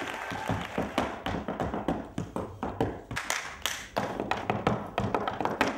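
Quick, irregular percussive taps and thumps from a flamenco stage performance, sharp strikes with a heavy low thud, coming several a second.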